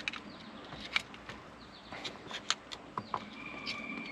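Scattered small clicks and taps of a test-light probe and leads being handled at a wiring connector. Birds call in the background, with one drawn-out call near the end.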